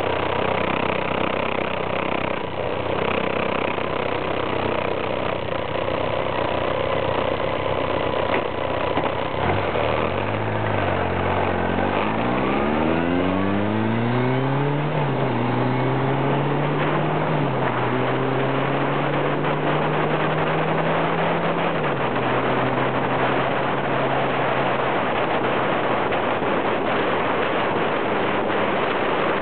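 Motorcycle ride heard from a low onboard camera: constant wind and tyre roar over the engine. About ten seconds in, the engine note climbs as the bike accelerates, drops back slightly twice as it shifts up, then holds steady before fading under the wind noise.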